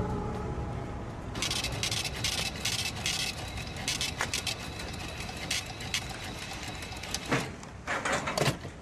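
Footsteps scuffing on pavement, then a glass shop door knocking and rattling as it is pushed open near the end.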